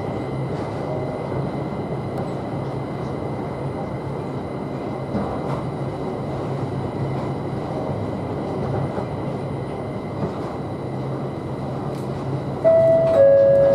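Cabin noise of the Linimo low-speed maglev train running on its elevated guideway: a steady rushing hum with a thin high tone over it. Near the end, a loud two-note falling chime sounds aboard, the signal that comes before an automated announcement.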